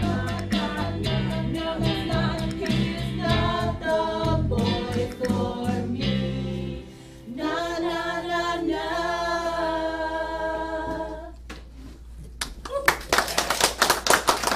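A small group of women singing a musical-theatre number in harmony over backing music, ending on a long held chord that fades about eleven seconds in. Audience applause breaks out about two seconds later.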